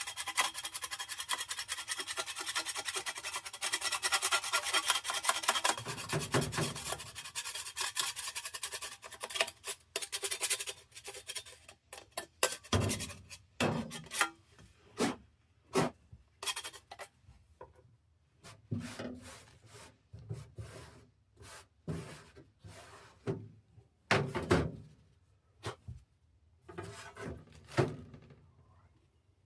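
Hand scraping and rubbing on furnace parts, continuous for about the first ten seconds, then a string of short, separate scrapes and knocks.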